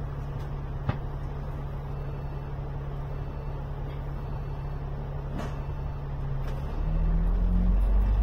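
Alexander Dennis Enviro 500 MMC double-decker bus engine idling steadily, heard from on board, with two sharp clicks. About seven seconds in, the engine gets louder and its pitch climbs as the bus pulls away.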